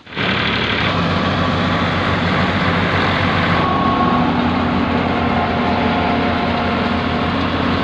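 Tractor-driven threshing machine running steadily: the tractor engine turns the thresher through its PTO shaft and belt drive while it threshes berseem seed.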